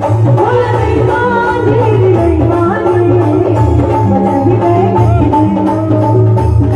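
A woman singing a folk song live through a stage PA, backed by an electronic keyboard with a steady bass line and a regular drum beat.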